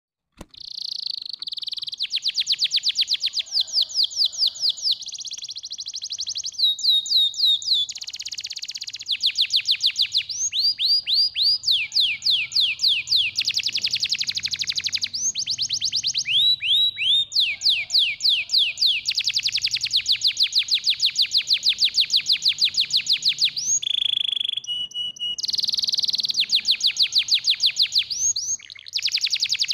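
Domestic canary singing a long continuous song of rapid trills. Each phrase is a fast run of one repeated note that switches to a new note type every second or two, with a short steady whistle about 24 seconds in.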